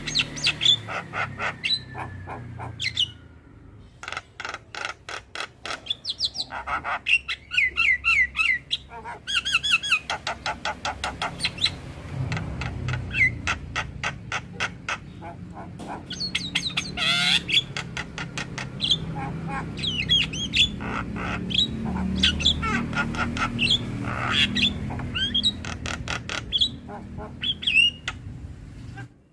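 Javan myna singing a long, varied song: rapid clicking chatter mixed with whistled gliding notes and harsh squawks, with a couple of brief pauses.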